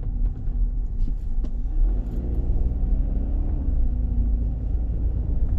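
Steady low rumble of a car's engine and tyres heard from inside the moving car, with a faint engine hum coming up about two seconds in.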